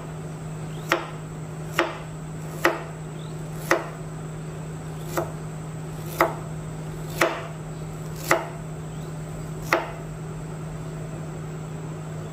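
Kitchen knife slicing ginger on a plastic cutting board: about ten sharp cuts, roughly one a second, stopping near the end. A steady low hum runs underneath.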